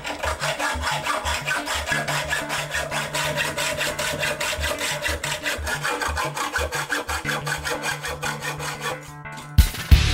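Planer knife held in a sharpening jig being rubbed back and forth on an abrasive, a quick rasping scrape at about six strokes a second. The strokes stop near the end as louder music comes in.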